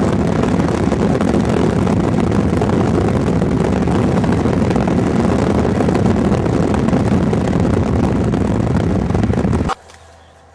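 Wind blowing hard across the camcorder's microphone: a loud, steady rumble and hiss that cuts off suddenly near the end.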